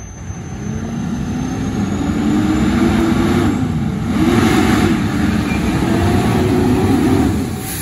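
Fire engine's diesel engine accelerating hard, its pitch climbing and dropping back about three times as the transmission shifts up, then easing off near the end.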